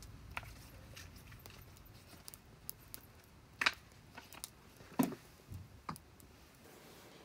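Faint, irregular crackles and pops of firewood burning in a small camp wood stove, with two louder pops near the middle.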